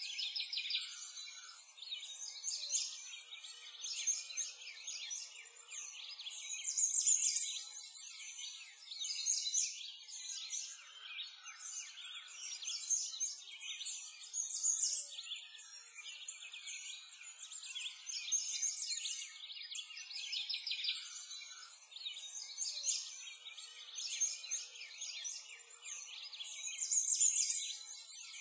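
A dense chorus of small songbirds chirping and twittering, swelling and fading every few seconds.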